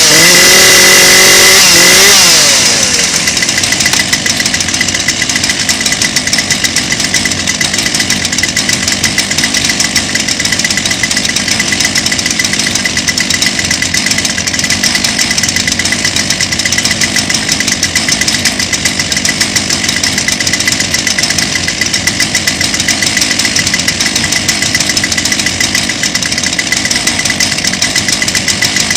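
Two-stroke chainsaw running at full throttle, its revs falling away about two seconds in, then idling steadily.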